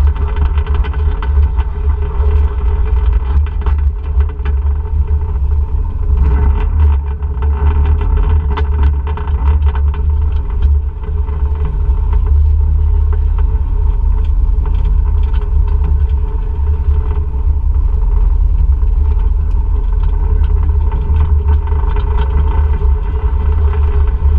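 ATV engine running steadily on a trail ride, under a heavy low rumble, with scattered rattles and knocks throughout.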